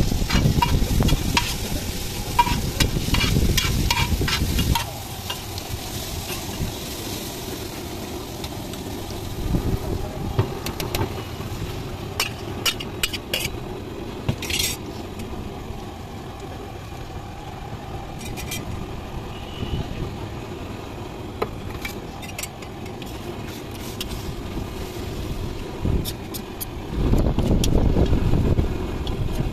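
Metal spatula and ladle scraping and tapping on a large flat iron tawa as chole and chopped onion and tomato are stirred and fried, with a sizzle. A quick, even run of taps fills the first five seconds, with scattered single clicks later, over a low rumble that is loudest at the start and again near the end.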